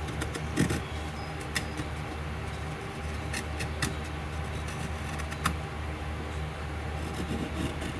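Carving knife paring wood: a scattering of short, irregular cutting and scraping clicks. Under them runs a steady low machine hum.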